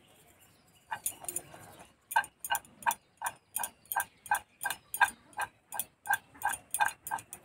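Short metallic clinks against a steel bowl as soaked sago pearls are mixed by hand with red food colouring, at an even pace of about three a second after a few uneven knocks at the start.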